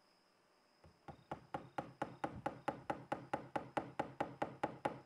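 Rapid, even tapping on wood, about four to five sharp knocks a second, starting about a second in: fingers tapping on a wooden block set on the top of a guqin under construction.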